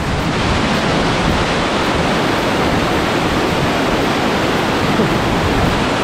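Waterfall rushing, a loud, steady roar of falling water.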